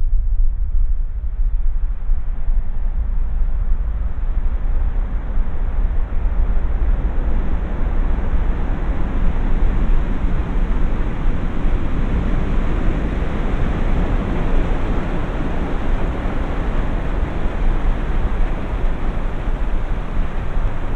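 Soundtrack to an extreme slow-motion film of Strokkur geyser's eruption: a loud, dense, low rumbling noise that grows fuller and brighter over the first ten seconds or so. It is the artist's own recreation of the geyser's sound, which slowed this far leaves only a creaking.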